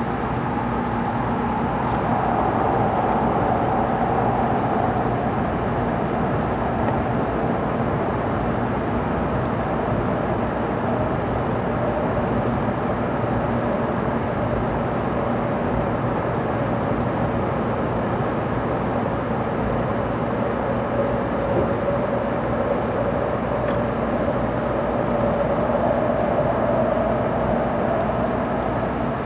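Steady running noise heard inside the passenger cabin of a 700 series Tokaido Shinkansen travelling at speed: an even rumble and rush of air and rails, with a faint whine that drifts lower in pitch over the first several seconds.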